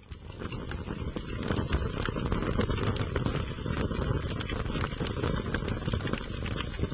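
Fire crackling: a dense run of small snaps and pops over a rushing noise, fading in over the first second or two and then holding steady.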